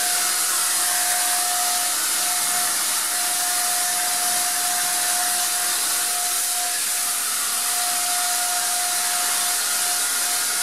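Wagner 150 electric paint sprayer running steadily, spraying screen paint onto a panel: a constant motor whine over a strong hiss of air and spray.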